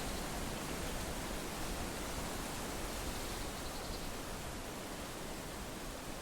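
Wind blowing through trees with leaves rustling, a steady rushing noise that eases slightly near the end.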